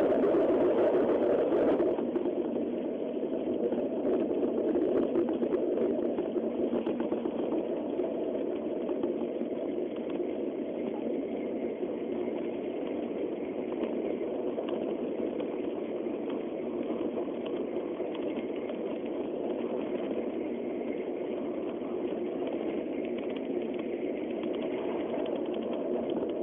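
Steady running noise inside a Shinkansen Nozomi bullet train's passenger cabin at speed: a dense, even rumble of wheels, track and air. It is a little louder for the first two seconds, then settles.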